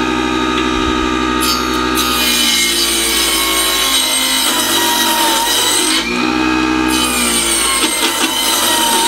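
Mini stainless-steel table saw running with a steady motor whine while its blade cuts a small block of wood. The cut begins about a second and a half in and pulls the whine lower under load. It breaks off briefly about two-thirds of the way through, then a second pass follows.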